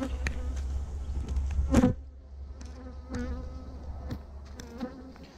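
Honeybees buzzing around their hive: a steady hum of many bees, with single bees flying close past the microphone, the loudest pass just under two seconds in.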